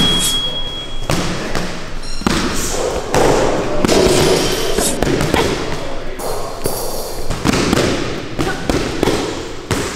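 Boxing gloves striking focus mitts during pad work: a string of sharp thuds at uneven spacing.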